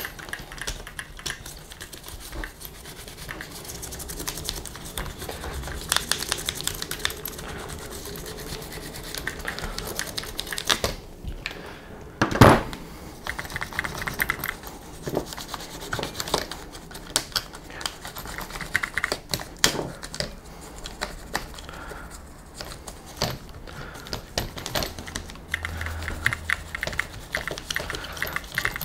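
Small stiff brush scrubbing crusty dried mud off an RC buggy's suspension arms and chassis: quick, scratchy back-and-forth strokes in irregular flurries. A sharp knock about twelve seconds in is the loudest sound.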